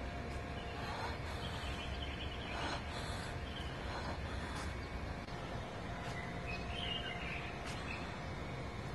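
Steady outdoor background noise with a faint hum, and a few faint bird chirps about seven seconds in.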